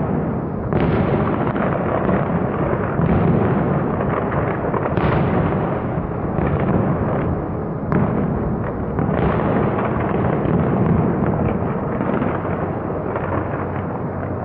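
Fireworks display in full barrage: rapid, overlapping shell bursts and crackling with no pauses, with heavier bangs about one, five and nine seconds in.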